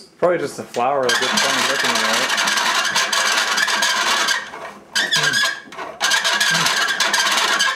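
Hand-cranked pasta machine's spaghetti-cutting rollers squealing and grinding loudly as the handle is turned, in three runs with short breaks about four and a half and six seconds in. The squeak comes from the dry cutter rollers, which the family puts down to the wheels themselves and tries to cure with oil.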